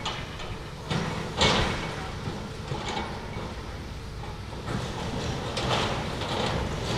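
Demolition excavator's diesel engine running, with scraping and crunching of concrete rubble under the machine at work; the loudest crash comes about a second and a half in, with smaller scrapes near three and six seconds in.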